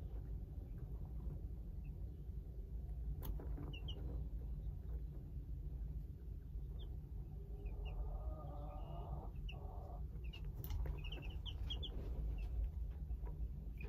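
Baby chicks peeping: short, high single cheeps now and then, with a quick run of several about ten seconds in, over a steady low rumble.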